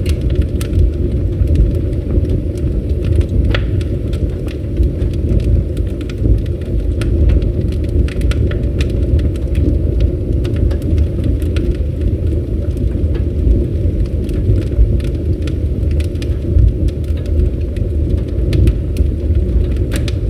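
Campfire burning: a steady low rumble of flames with frequent sharp crackles and pops.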